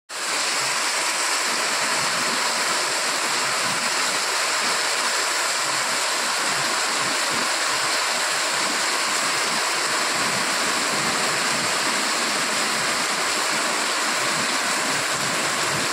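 Heavy rain pouring down in a windstorm: a loud, steady hiss of rain that does not let up.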